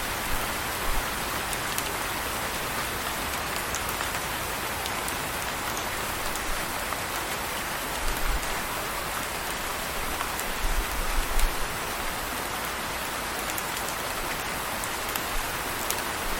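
Steady rain falling, a dense even hiss with scattered sharp drop ticks. A few brief low rumbles come through about eight seconds in and again around eleven seconds.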